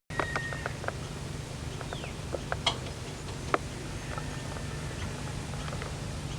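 A few short bird chirps and scattered sharp clicks over a steady low hum, with one brief falling whistle about two seconds in.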